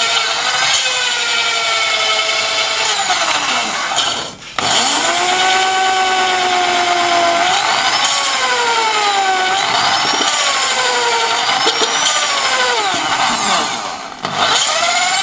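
Power drill spinning a valve against its seat in a Volkswagen air-cooled cylinder head to lap it with fine grinding paste. The motor whine rises and falls in pitch over a gritty grinding, stopping briefly about four seconds in and again near the end before starting up again.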